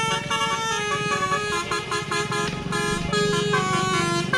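Basuri telolet horn playing a quick melody of rapidly changing notes, with a steady low hum beneath it.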